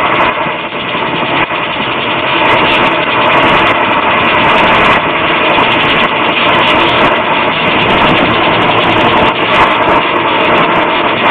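Brazing torch flame hissing steadily while it heats a copper joint on a heat pump's new reversing valve.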